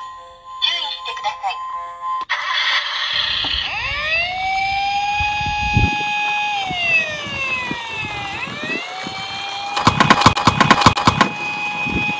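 Toy police car's electronic siren wailing in slow rises, long holds and falls, like a Japanese patrol-car siren, after a short bit of music. A low rumble of plastic wheels rolling on a wooden board comes under it for a few seconds, and a quick flurry of clicks and rattles comes near the end.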